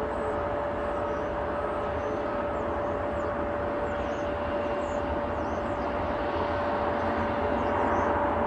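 Jet engines of a twin-engine widebody airliner on final approach, a steady noise with a constant whine, growing a little louder near the end as the plane comes closer.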